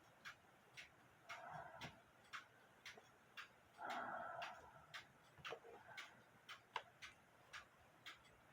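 Mechanical clock ticking steadily and faintly, about two ticks a second. A brief soft sound comes about four seconds in, and a fainter one comes earlier.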